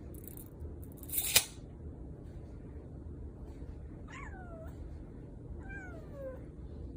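A brief rustling burst about a second in, then a domestic cat meowing twice, each meow falling in pitch.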